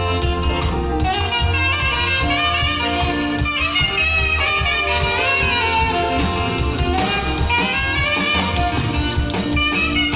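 Saxophone playing a worship melody with quick runs and gliding notes over a band backing with a steady bass line.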